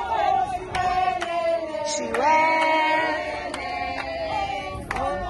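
A group of women singing together, holding notes, with a new phrase starting about two seconds in. Hand claps keep time about twice a second.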